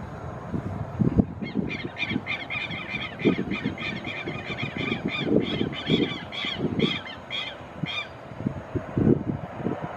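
A bird calling in a rapid run of harsh, evenly spaced honking notes, about three a second, for several seconds before stopping. Irregular low thuds sound underneath throughout.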